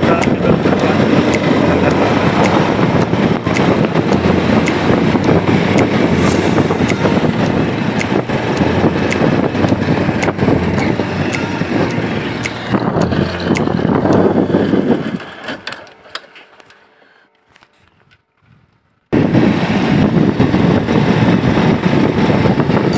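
Riding a motorcycle: steady wind buffeting the microphone over the engine and road noise. About fifteen seconds in the sound fades away to almost nothing, then cuts back in suddenly about three seconds later.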